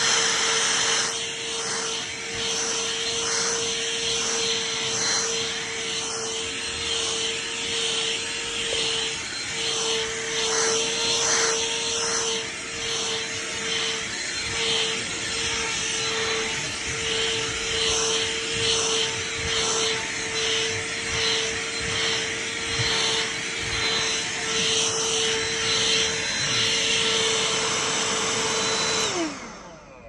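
Black+Decker cordless handheld vacuum running as it is passed over carpet, a steady whining motor with its level swelling and dipping about once a second. Near the end it is switched off and the motor winds down, its pitch falling.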